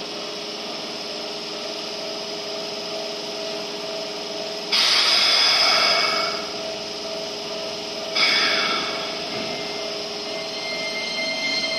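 Red Keikyu electric train standing idle, its onboard equipment humming steadily on two held tones. Two louder hissing rushes come about five and eight seconds in, and a rising whine starts near the end as the train begins to move.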